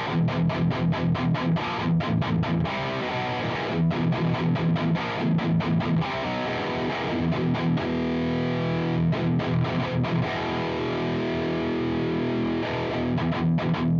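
Electric guitar through a JOYO Dark Flame high-gain distortion pedal, playing a riff of fast palm-muted chugs. Held, ringing chords take over in the middle, and the quick chugging comes back near the end.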